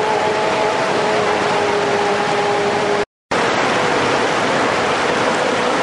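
Racing hydroplane's Mercury 50 hp outboard motor running flat out: a steady high engine note over a rushing hiss of water and wind. The sound drops out completely for a moment about halfway, then goes on with a single slightly higher steady note.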